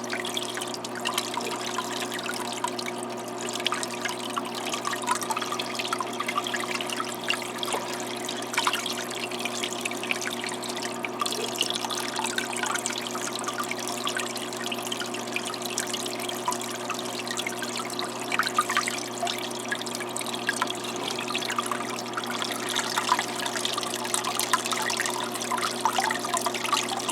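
Pump-fed aquarium waterfall running at full flow, water trickling and splashing steadily off a stone into the tank, with a steady hum beneath it.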